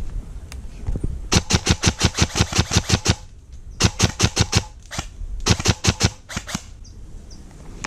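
Airsoft rifle firing three bursts of full-auto: rapid sharp cracks at about nine or ten a second. The first burst is the longest, and two shorter ones follow.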